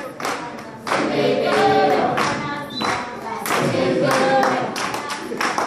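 Group of voices singing a Venda malende song together, kept in time by a steady rhythm of hand-clapping; the singing grows louder about a second in.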